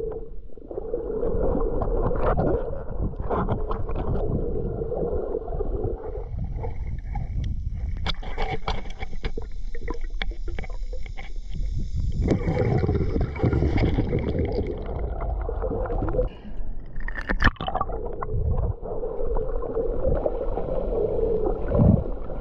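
Underwater sound picked up by an action camera during snorkeling: a muffled rumble of water with gurgling and many small clicks, and a steady low hum during the first six seconds and again near the end.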